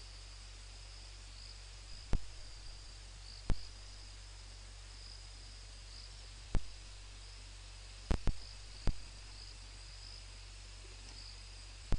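Insects trilling steadily in a high, slightly pulsing chorus over a hiss and a low hum. About six sharp, brief clicks break in at irregular moments, louder than the chorus.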